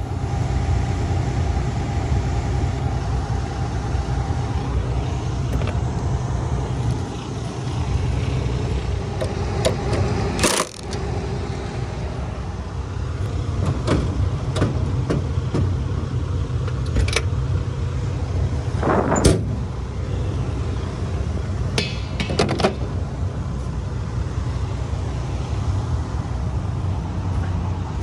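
Combine running steadily in the background, a low continuous rumble, with scattered metal clinks and knocks from hand tools as a bolt is fitted to the header's height-sensor arm; the sharpest knock comes about two-thirds of the way through.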